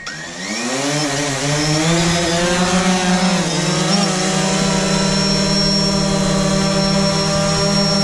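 DJI Phantom 4 Pro Plus quadcopter spooling its motors up from idle and lifting off: the pitch of the propeller hum rises over the first two seconds and wavers briefly about three to four seconds in, then settles into a steady hovering hum. It is fitted with the older, louder first-generation propellers.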